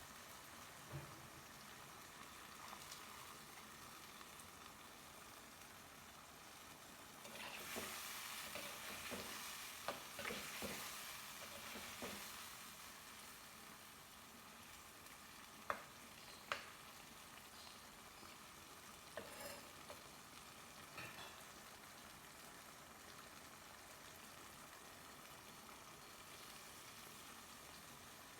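Food sizzling quietly in oil in a cooking pan while it is stirred. The sizzle swells for a few seconds about eight seconds in, with sharp knocks of a utensil against the pan, and a couple more knocks come a few seconds later.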